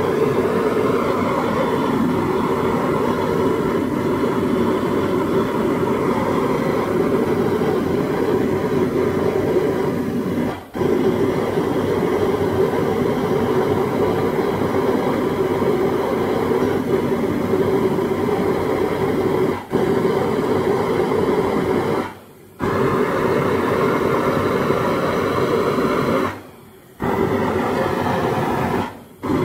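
Propane brazing torch with a large nozzle burning with a loud, steady rush while it heats a copper workpiece for hard brazing. The sound cuts out briefly and suddenly about five times from about a third of the way in.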